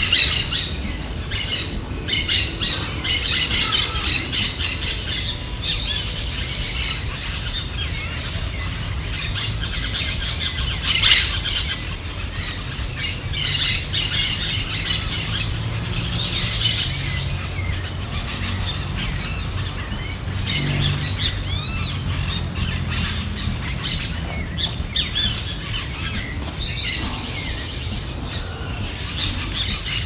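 Nestling songbirds begging from the nest with repeated high thin chirps while a parent bird stands at the nest. About a third of the way through, one short, sharp, much louder sound stands out, and a steady low rumble runs underneath.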